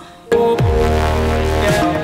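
Background electronic music starts a fraction of a second in, with a full sustained chord and deep bass notes that slide down in pitch about once a second.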